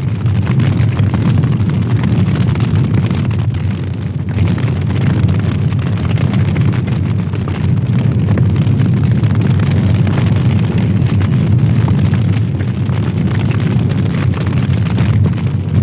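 Wood-fired chamber kiln burning hard at an open stoke hole: a steady, loud, low roar of flames drawing through the kiln, with dense crackling of the red pine firewood.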